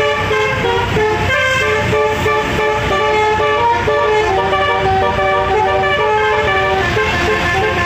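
Six-trumpet "telolet" bus horn playing a quick tune of short stepping notes, over the low rumble of the bus.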